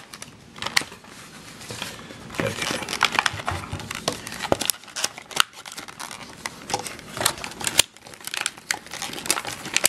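Clear plastic blister packaging crinkling and crackling as hands pull it apart and work small plastic trash-can containers out of the tray, with many sharp clicks throughout.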